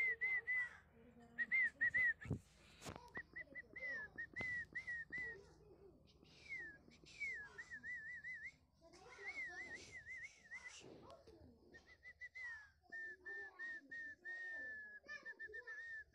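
Whistling in short phrases of quick warbled notes that waver up and down around one high pitch, about five a second, with brief pauses between phrases. Fainter voices run underneath, and there are two sharp clicks about two to three seconds in.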